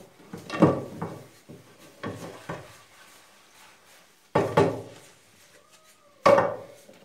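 Dishes being washed by hand in a sink: plates and a pan knock and clatter against each other and the sink, about six sharp knocks with the loudest in the second half.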